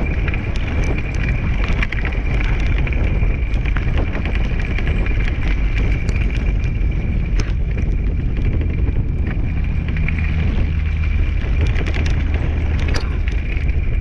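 Wheeled dog rig rolling fast over a leaf-strewn dirt path behind two running dogs, with wind buffeting the microphone. It makes a steady rumble with scattered small clicks and a thin, steady high whine.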